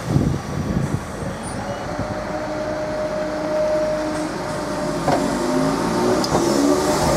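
Class 313 electric multiple unit pulling away, its traction motors whining and stepping up in pitch as it gathers speed, growing steadily louder, with a couple of sharp clunks from the wheels over the track.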